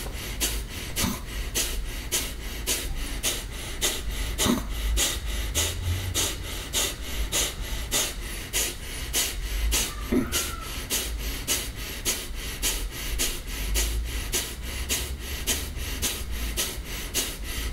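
Kapalabhati breathing: a steady rhythm of short, forceful puffs of breath snapped out through the nose, about two to three a second, each one pushed by a pull of the abdomen.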